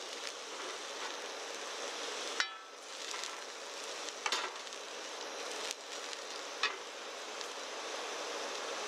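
Mapo tofu sizzling steadily in a wok on a gas camp stove, while a metal ladle stirs and scrapes it. The ladle strikes the wok with three sharp, ringing clinks, spaced about two seconds apart.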